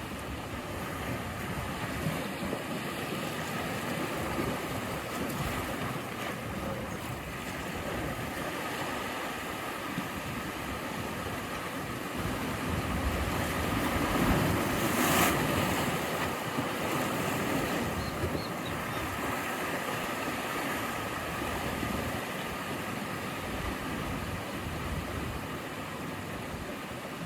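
Sea waves breaking and washing on the shore, a steady surf rush that builds to one louder wave crash about halfway through.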